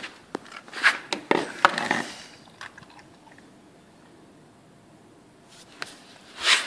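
Czechoslovakian wolfdog biting and chewing raw meat: a quick run of wet crunching clicks in the first two seconds, then quiet, then one short loud rush of noise near the end.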